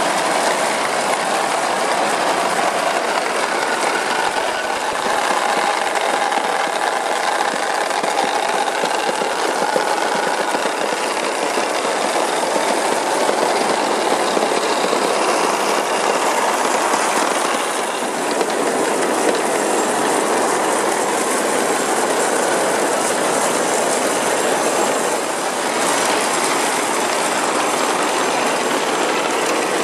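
Thousands of 15–17 mm glass marbles rolling together down a wooden marble run, making a dense, steady clatter of glass clicking on glass and wood.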